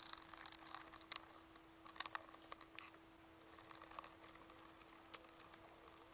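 Faint, scattered clicks and taps of a laptop battery pack being pressed into its bay and the plastic chassis being handled, over a faint steady hum.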